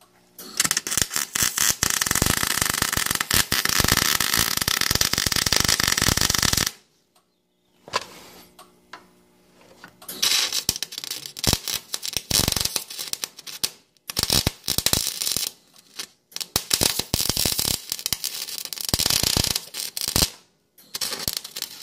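Wire-feed welder arc crackling as a patch is welded onto a rusty steel mower deck. There is one run of about six seconds, then after a pause several shorter runs of one to four seconds with brief gaps between.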